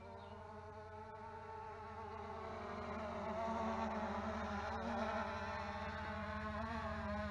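Xiaomi Mi 4K quadcopter's motors and propellers buzzing, their pitch wavering as it flies in low to land, growing louder as it comes closer.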